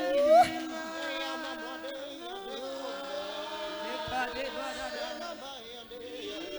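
Gospel worship singing: voices holding long, drawn-out notes, with one voice sliding up loudly about half a second in.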